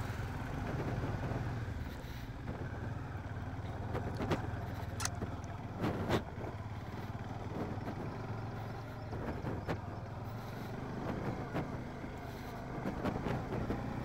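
Bajaj Dominar 400's 373cc single-cylinder engine running steadily at low speed, with a few sharp knocks and clatters scattered through as the bike rides over rough, unpaved ground.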